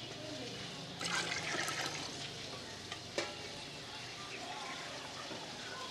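Watery broth in an aluminium cooking pot being stirred with a steel ladle: a second of liquid swishing about a second in, then a single sharp clink about three seconds in, over a steady low hiss.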